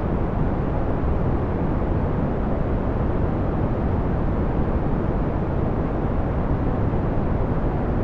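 Steady brown noise: an even, deep rushing hiss, strongest in the low end and falling away toward the treble, with no change in level.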